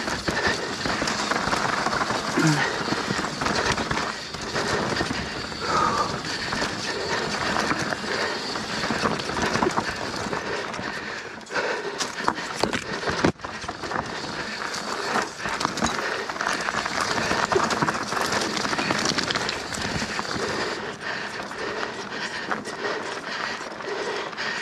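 Mountain bike ridden fast down a dirt singletrack: a steady rush of tyre noise over dirt and rocks, broken by frequent rattles and knocks from the bike as it hits bumps.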